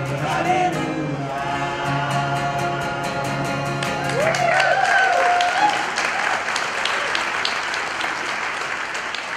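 Voices in harmony with an acoustic guitar hold the final chord of a song, which ends about four seconds in. A cheer with a rising and falling pitch rings out, and applause follows and keeps going.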